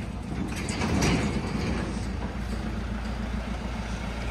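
A van's engine running steadily as the van manoeuvres while towing a loaded trailer, a low hum that swells slightly about a second in.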